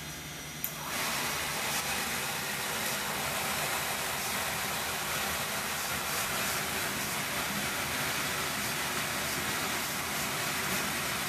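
Beckett oil burner motor and blower fan switching on with a click about a second in, then running steadily during the pre-purge before the flame lights.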